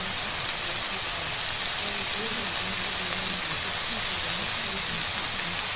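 Steady rain sound with faint spoken affirmations layered underneath it, some at normal speed and some sped up, too quiet to make out.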